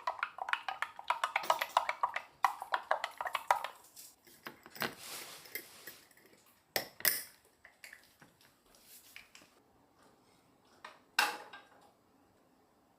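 Spoon clinking and scraping against a bowl: a quick run of taps over the first few seconds, then a few single clinks.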